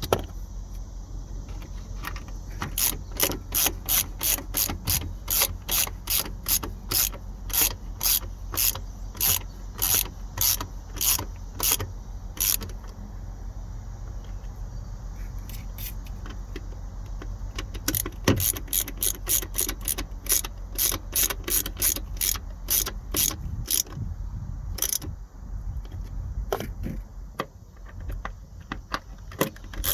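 Hand ratchet wrench clicking in quick even strokes, about two clicks a second, in runs broken by pauses about 13 seconds in and again near 25 seconds in, over a steady low hum.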